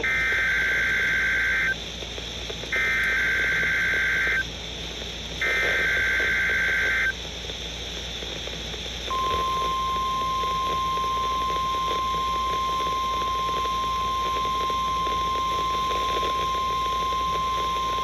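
EAS/SAME header data bursts: three identical screeching digital bursts about a second apart, then a steady single-pitch NOAA Weather Radio warning alarm tone that starts about halfway through and holds, heard through a weather radio's speaker. This is the start of a Required Weekly Test signal.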